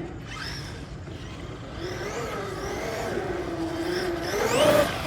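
Small petrol engine of a 1/4-scale RC motorcycle running, its pitch wandering up and down, then climbing sharply in a rev near the end.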